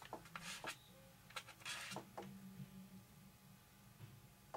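Faint clicks and a short rustle of small metal hardware being handled by hand, over a low steady hum; the clicks are spread through the first couple of seconds and the rustle comes about two seconds in.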